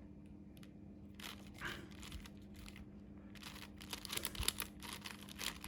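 Plastic 5x5 Rubik's Cube being turned by hand: quick clicking and rattling of its layers. The turns come in a short flurry about a second in and a longer, busier run in the second half.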